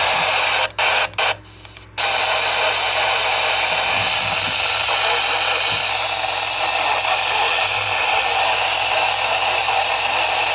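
Radio static: a steady hiss from a radio receiver tuned to a weak or silent signal. It drops out briefly a few times in the first two seconds, then runs on unchanged.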